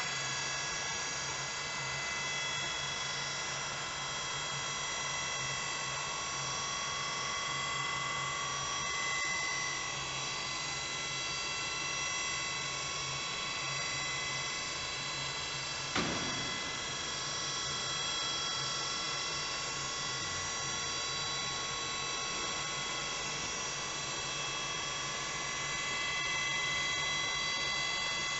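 CNC vertical machining center running, giving a steady whine made of several held tones. There is one sharp click about sixteen seconds in.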